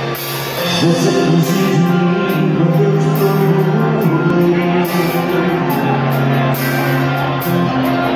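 A live dance band playing loud amplified music on drum kit and electric bass, with a male singer over it.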